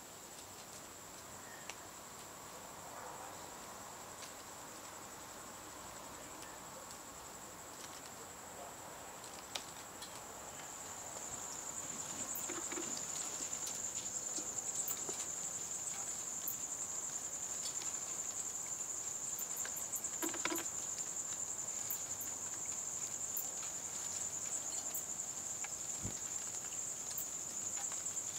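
An insect trilling steadily on one high pitch, growing louder about ten seconds in, with scattered faint ticks.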